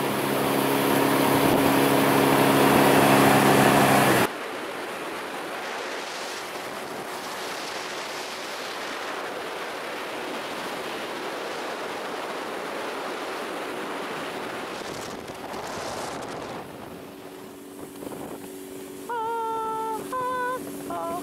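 Outboard motor of a small fishing boat running under way, a steady engine hum under a loud rush of wind and water. About four seconds in it cuts off abruptly to a quieter, steady rush of wind and water. Music comes in near the end.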